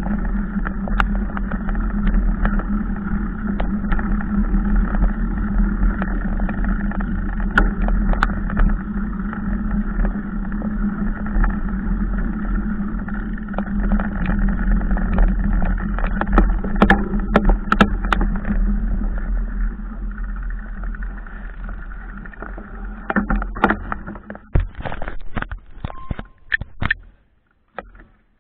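Mountain bike rolling over a dirt and sand path, heard through a handlebar-mounted camera: a steady rumble from tyres and frame with frequent knocks and rattles over bumps. Near the end the rumble breaks into a few clatters and dies away as the bike comes to a stop.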